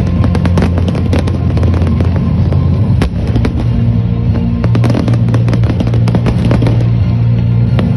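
Fireworks display: rapid, overlapping bangs and crackles of shells bursting, over music with sustained low bass notes.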